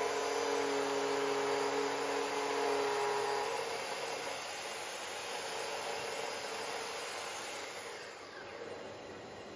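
Festool HK 85 circular saw with a Whitehill profile cutter running along a guide rail, cutting a bead profile into a wooden board, with the steady rush of a dust extractor underneath. About eight seconds in the saw's whine falls away and the sound drops to the extractor's rush.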